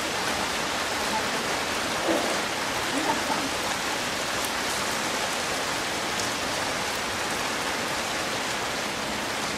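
Heavy rain falling steadily, an even hiss with no break.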